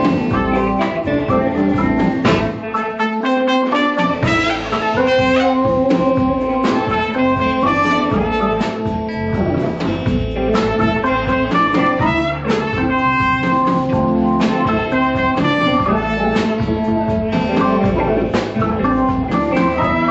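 Live blues band playing an instrumental jazz-blues number, with trumpet over electric guitars, bass, drums and keyboard. The bass and drums drop out briefly about three seconds in, then come back in.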